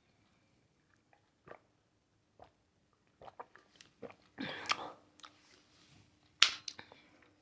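Close-miked chewing and biting of crunchy hot Cheeto-coated fried pickles: scattered crunches and mouth clicks, busiest about halfway through, with a sharp loud crunch near the end.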